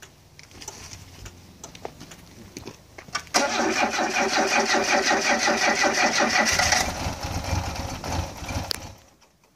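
Citroën BX GTI's four-cylinder petrol engine being cold-started after standing for a few weeks. The starter cranks with an even pulsing for about three and a half seconds, then gives way to a lower rumble for about two seconds before the sound falls away near the end.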